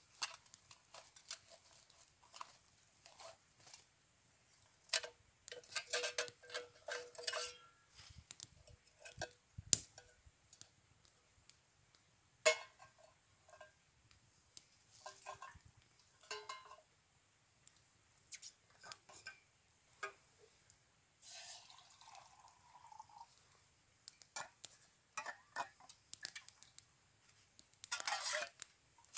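Metal camp cookware being handled at a small wood-burning stove: scattered clinks and knocks of a cup or pot against the stove, a few ringing briefly, with short scrapes.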